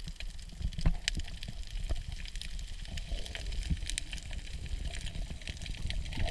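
Underwater sound picked up through a camera's waterproof housing: a steady low rumble of moving water with scattered sharp clicks and crackles.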